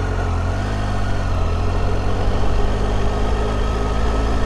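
Triumph Tiger 800 XRx's three-cylinder engine running under the rider at low road speed; its pitch rises a little in the first second, then holds steady.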